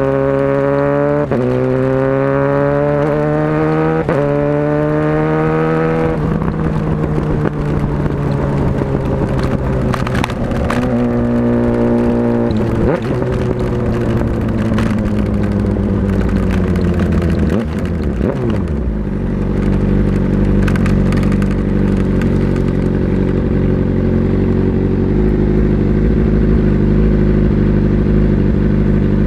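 Motorcycle engine pulling through the gears: its pitch climbs and drops back at each upshift, about a second, four and six seconds in. It then holds steady, winds down between roughly twelve and eighteen seconds, and settles into a steady lower note.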